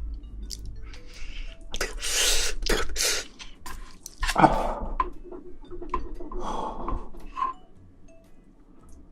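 Close-up eating sounds from a giant black tiger shrimp: chewing, with irregular crackling bursts and clicks of the shell, easing off near the end.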